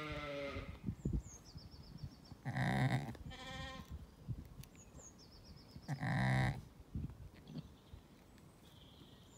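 Zwartbles sheep bleating: two loud, low bleats about three seconds apart, the first followed at once by a higher, quavering bleat, with another bleat fading out at the very start. A small bird sings a short repeated phrase in the background a couple of times.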